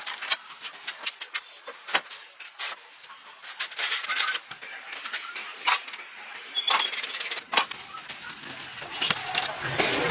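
Irregular sharp clicks and knocks mixed with short bursts of scraping. A low rumble comes in near the end.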